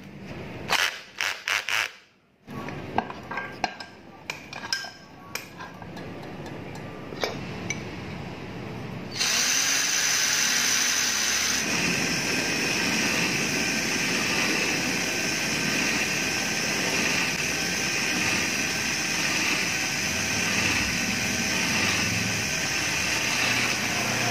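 Cordless drill's keyless chuck clicking and ratcheting as it is tightened on a rivet's steel stem. About nine seconds in the drill starts and runs steadily, spinning the pin against a file that is tapering it into a carburettor needle.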